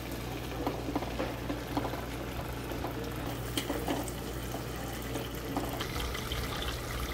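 Thick pepper-and-onion stew sauce bubbling in a stainless steel pot, with small irregular pops, as vegetable oil is poured in from a bottle at the start. A low steady hum runs underneath.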